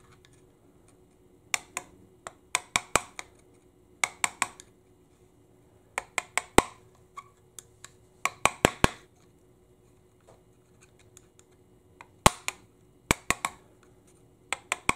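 Sharp metallic clicks from a hand tool working at a nut on an aluminium automatic transaxle case, coming in short bursts of three to six quick clicks with pauses of a second or two between them.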